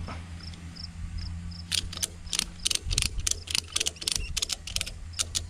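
Ratchet strap being cranked tight on a timber post to draw it plumb: a run of sharp ratchet clicks, about three or four a second, starting about a second and a half in.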